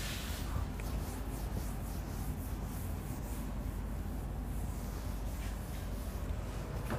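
Whiteboard duster rubbing across the board as it is wiped clean, over a steady low room hum.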